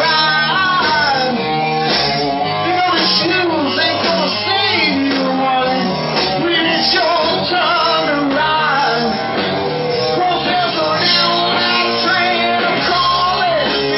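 Live rock band playing: electric guitars, bass guitar and drum kit, with a male singer.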